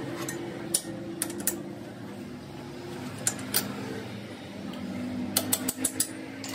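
Metal lathe running with a steady hum, with sharp metallic clicks and knocks: a few spread apart, then a quick run of them about five and a half seconds in.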